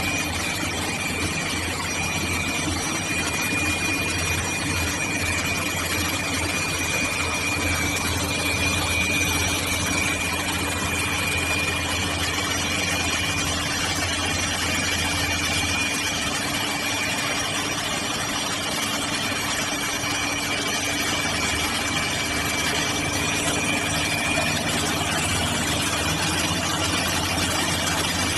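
Grinding machine for diamond saw blade segments running steadily: a constant machine hum and noise with a thin high whine over it, which fades out near the end.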